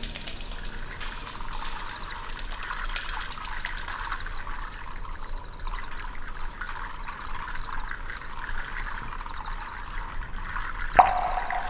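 Night insects: a cricket-like chirp repeating about three times a second, high-pitched and steady, over a softer hiss. A single sharp click near the end.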